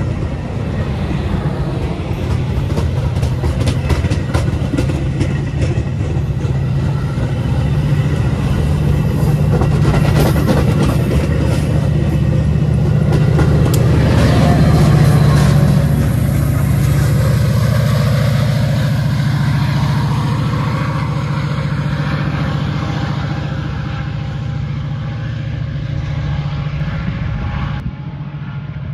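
Metra commuter train passing close by: stainless bilevel passenger cars roll past with rapid wheel clicks over the rail joints, under the steady low drone of the diesel locomotive. The drone is loudest about halfway through as the locomotive goes by, then fades.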